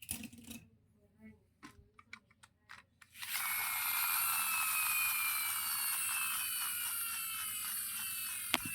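A few small clicks and ticks, then a small electric motor starts about three seconds in and runs with a steady high whine whose pitch sags slowly, with one sharp click near the end.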